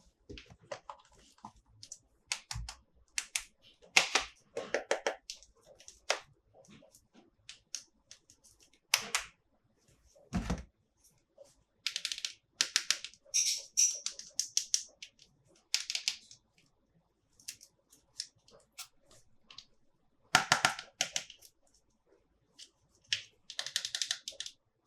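Hands handling plastic toys and their packaging: scattered clicks and taps, with bursts of crinkling around the middle and near the end.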